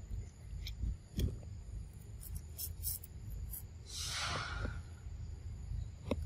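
Pig-tailed macaque eating fruit: scattered short wet mouth clicks as it chews, and a short breathy exhale about four seconds in, all over a low steady rumble.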